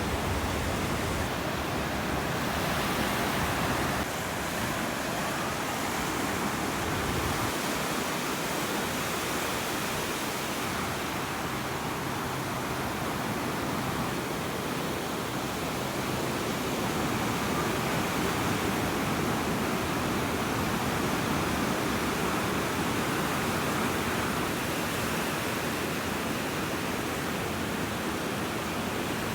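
Ocean surf washing up the beach: a steady, even rushing of waves.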